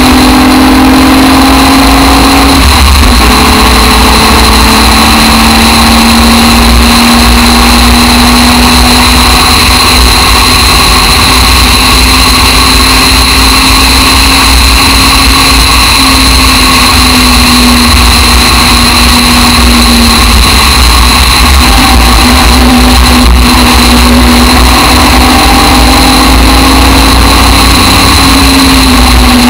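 Aston Martin DBR1 tribute race car's engine running hard at speed, heard on board, its pitch drifting up and down a little with a brief break about three seconds in, over a heavy low rumble.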